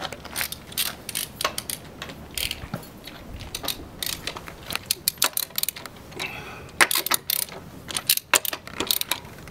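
Socket ratchet clicking in short irregular runs of sharp metallic clicks as the lug nuts on a truck wheel are broken loose, with a louder run of clicks about seven seconds in.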